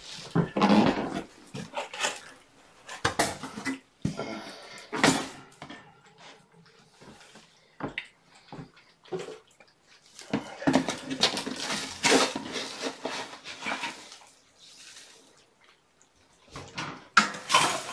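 Scooping clumping cat litter in a plastic litter pan: gritty scraping and rattling in irregular bursts with short pauses between.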